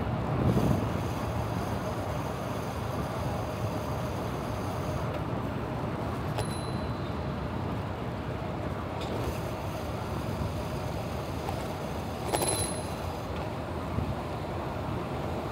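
Steady city traffic and road noise picked up by a chest-mounted camera on a moving bicycle, with two brief high-pitched tones about six and twelve seconds in.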